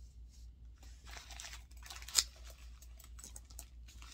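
Wrapping rustling and crinkling as a small item is unwrapped by hand, with one sharp click about two seconds in.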